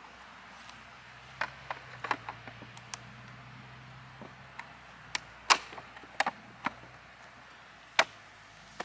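Irregular sharp clicks and knocks of hands handling and fitting plastic parts at the top of a post cover. The loudest come a little past halfway and again near the end, over a faint steady low hum.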